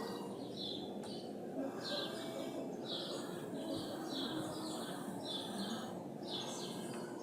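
A small bird chirping over and over, short high chirps about two a second with a brief break about a second in, over steady outdoor background noise and a faint hum.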